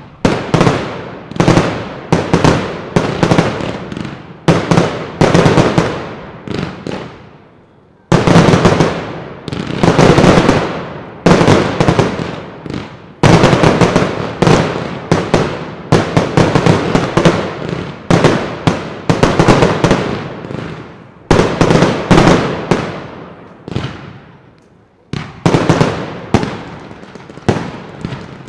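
Professional fireworks display: a rapid, continuous series of loud aerial shell bursts, several bangs a second, each dying away quickly. There are two brief lulls, one about a quarter of the way in and one near the end.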